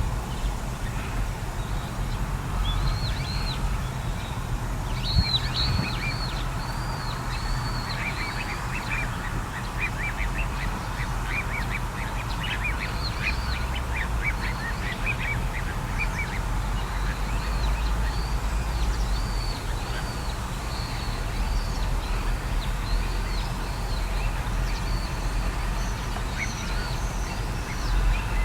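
Little ringed plover calling: repeated short, down-slurred whistled notes that come in loose series throughout, with a quick run of rapid lower notes in the middle. A steady low rumble runs underneath.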